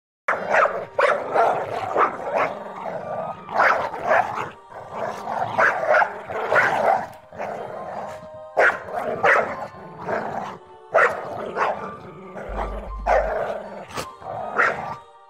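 Dogs barking, yelping and growling in short, irregular bursts, one or two a second, starting sharply just after the beginning.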